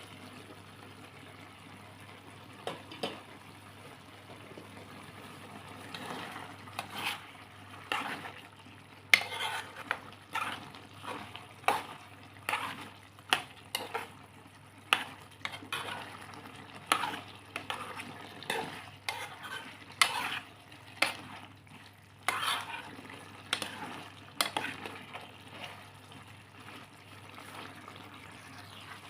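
Food frying in a pan and being stirred: a steady sizzle with repeated sharp scrapes and knocks of a cooking utensil against the pan, about one or two a second, from about six seconds in until a few seconds before the end.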